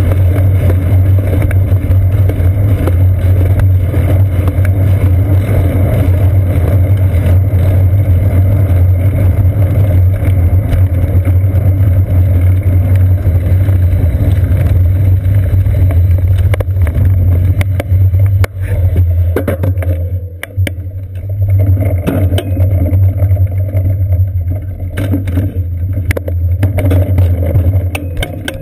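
Ride noise of a moving bicycle picked up by a seat-post-mounted GoPro Hero 2: a loud, steady low rumble of road vibration and wind. In the last third it dips in level at times and is broken by scattered clicks and knocks as the bike slows through a parking lot.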